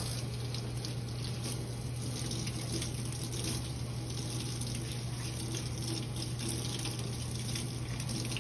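Tap running steadily into a sink while hands are washed under it, with a steady low hum underneath.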